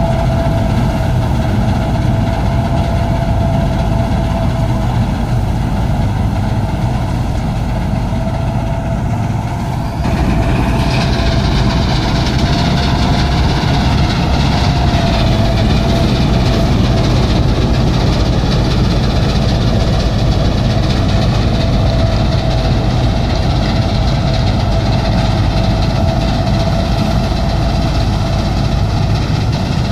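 Combine harvester powered by a Mahindra Arjun Novo 655 DI four-cylinder diesel engine, running steadily under load while cutting and threshing paddy, with a steady whine over the engine. About ten seconds in the sound gets louder and gains more hiss, then holds.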